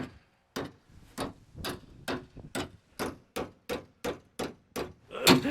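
Hammer striking a pry bar, metal on metal, in a steady run of blows about three a second, driving the bar in to break the spot weld holding a car's front fender.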